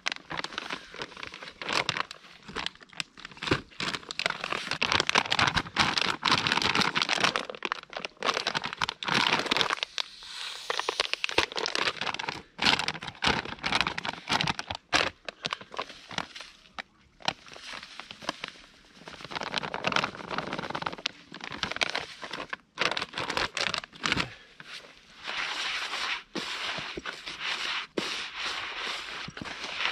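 Groundbait being handled and mixed: a plastic bag crinkling and rustling, with the crumbly mix rasping and crackling as it is poured and worked by hand, in irregular bursts with short pauses.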